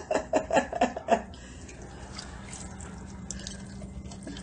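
Shallow water in a kitchen sink stirred by small rodents wading in it: faint splashing and drips over a steady low hum. Near the start, a person's voice in a quick run of short, loud bursts.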